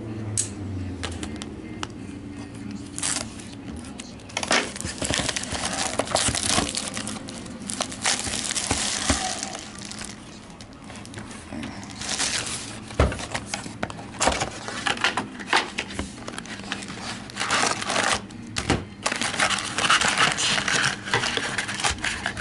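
Plastic shrink-wrap being torn off a trading-card hobby box and crumpled, a long run of irregular crinkling and crackling with sharp snaps, then foil card packs rustling as they are lifted out of the box.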